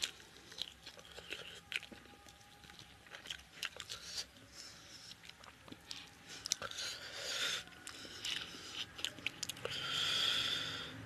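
Close-up eating sounds of a man eating rice and chicken curry by hand: wet chewing and lip smacks with many small clicks. A longer hissing sound comes twice, once in the middle and louder near the end.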